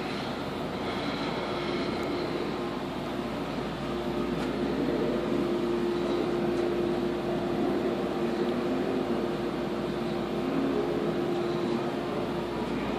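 Steady indoor background noise with a constant low hum, like ventilation.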